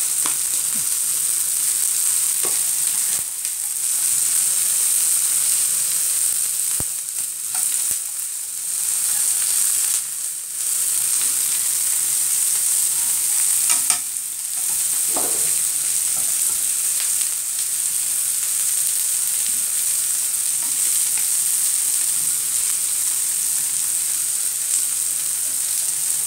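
Shell-on prawns sizzling steadily in hot oil in a frying pan with sliced onion, ginger and garlic, with a few light clicks as wooden chopsticks turn them.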